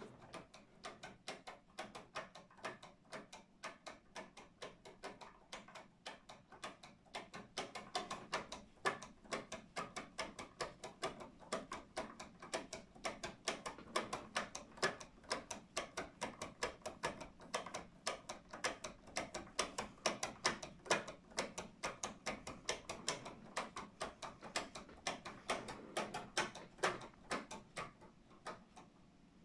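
3D-printed plastic verge-and-foliot escapement ticking: the pallets knock back and forth against the crown wheel, several uneven clicks a second. It clatters between the pallets instead of running smoothly, which the maker thinks is down to too-light foliot weights and too much friction.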